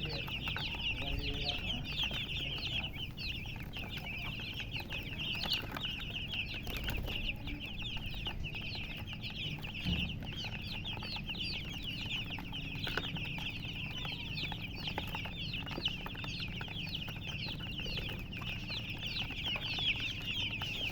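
A brood of domestic chicks peeping continuously, many short, high, falling peeps overlapping into a steady chorus.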